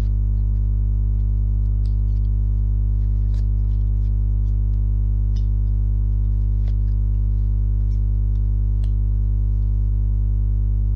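Steady electrical mains hum at about 50 Hz with a stack of overtones, unchanging throughout, with a few faint scattered clicks.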